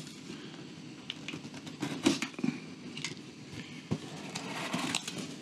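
Cardboard shipping box being handled and opened by hand: scattered scrapes, rustles and small knocks of cardboard and packing tape, with a longer rustle about four to five seconds in.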